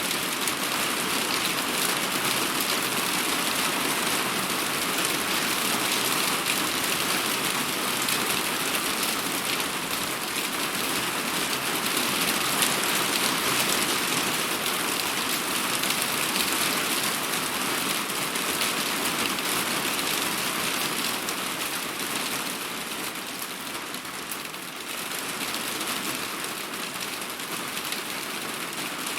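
Heavy rain falling steadily, a dense hiss of drops hitting a surface, easing slightly for a few seconds past the middle.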